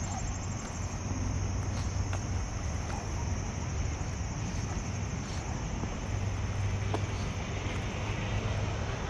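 Steady outdoor background of wind on an action camera's microphone and a low rumble of distant traffic, with a steady high hiss and a few faint, irregular footstep taps.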